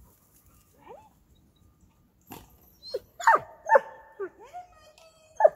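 A dog giving a short rising whine, then a run of loud high-pitched barks and yelps that slide down in pitch, starting about three seconds in, with a sharp knock just before them.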